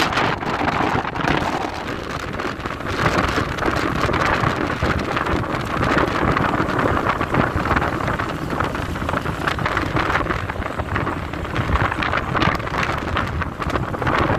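Wind rushing over the microphone and road noise from a moving vehicle: a steady, gusting rush over an uneven low rumble.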